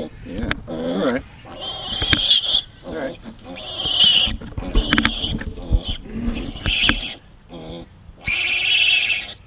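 Piglet squealing in about four loud, short bursts, with lower-pitched sounds between them.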